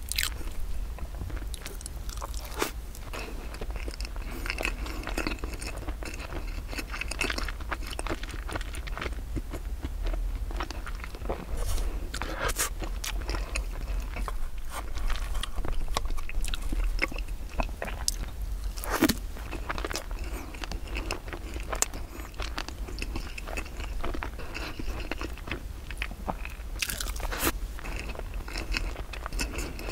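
Close-miked chewing and biting of soft cheese rice-flour cake topped with cream, with occasional sharp clicks and a steady low hum underneath.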